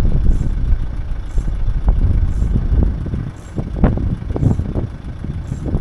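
Low rumble of a vehicle driving on a rough road, with a few sharp knocks and rattles around the middle.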